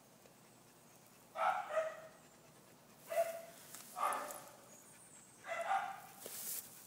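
Labrador retriever giving short yelping barks, four of them roughly a second or so apart.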